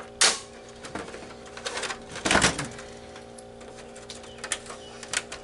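Plastic clips of an Xbox 360 case clicking and snapping as a flathead screwdriver pries them loose: a sharp snap just after the start, a cluster of clicks around two seconds in, and a few lighter clicks near the end.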